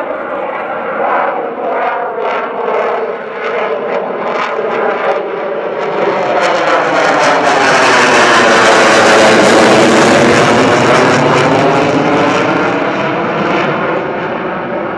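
F-16 fighter jet's engine roaring as the jet flies past, building to its loudest about halfway through and then fading away, with the sweeping phasing whoosh of a close flyby.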